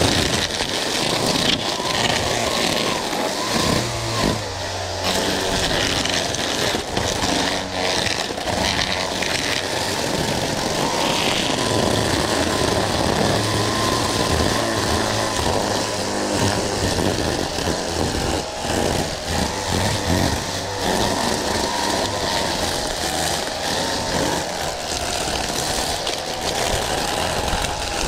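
Lawn mower engine running steadily, starting abruptly at the beginning.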